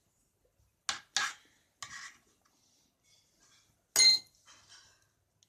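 A metal teaspoon knocking and scraping against the bowl of soap-and-salt slime: a few clinks early, then one louder ringing clink about four seconds in.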